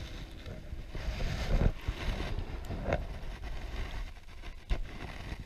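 Wind buffeting the microphone over a noisy rush, with a few dull knocks from handling, the loudest about one and a half seconds in.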